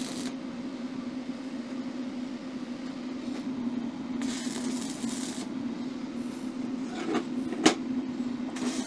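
Stick-welding arc tacking steel plates with thin 2.5 mm rutile-cellulose electrodes: a short burst of arc crackle about four seconds in and another starting at the very end, over a steady hum. A single sharp click, the loudest sound, comes about a second before the end.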